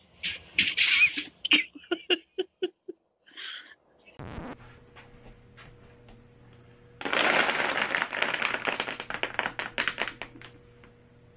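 A few short calls and a quick run of pings from Canada geese on ice. Then, after a pause, a loud rattling clatter of plastic disc cases knocking together in a tall stack, lasting about three seconds before stopping.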